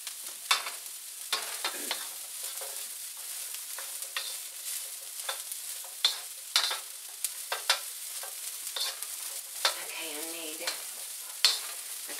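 Broccoli sizzling in a hot wok as it is stirred with a wooden spoon, which knocks and scrapes against the pan every second or so over a steady hiss.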